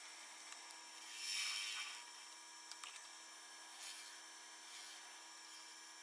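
Small wood lathe running with a steady motor hum while a bowl gouge cuts into the spinning wet-wood bowl blank: a longer scraping cut about a second in, then lighter touches of the tool near the four-second mark.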